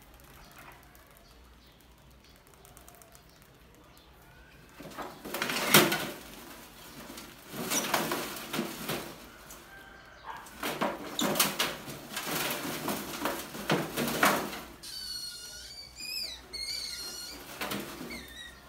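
Trapped rats scrabbling and thrashing inside a metal box trap under a wire mesh lid, with a loud clatter about six seconds in and irregular rattling for about ten seconds. High-pitched gliding squeaks from the rats near the end.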